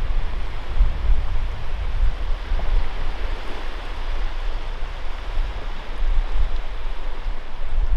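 Wind blowing across the microphone: a steady rushing noise with a gusty low rumble that rises and falls.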